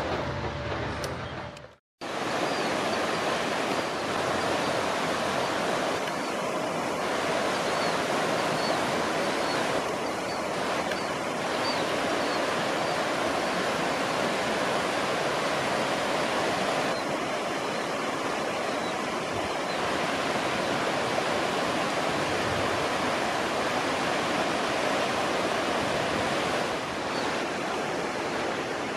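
Alameda Creek in flood after heavy rain, its high, fast brown water rushing steadily past concrete bridge piers. It is preceded by a passing train that fades out into a moment of silence about two seconds in.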